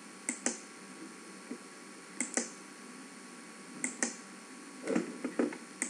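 Computer mouse clicks: three double clicks, each a press and release, about two seconds apart. A few softer knocks follow near the end.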